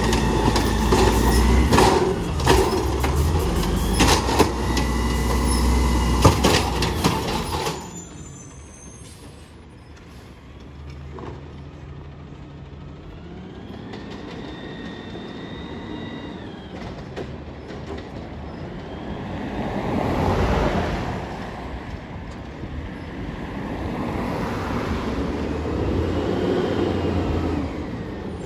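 Automated side-loader garbage truck lifting and dumping a cart: its diesel engine revs up under hydraulic load while the cart and arm clank and bang repeatedly. About eight seconds in the sound drops suddenly to a garbage truck working further off, its engine rising with a whine and swelling twice more.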